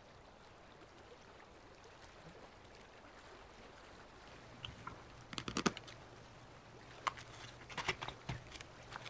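Crisp clicks and paper rustles of a sketchbook being handled and its cover lifted open, over a faint steady hiss. The first few seconds hold only the hiss; a quick run of clicks comes about halfway through, and more come near the end.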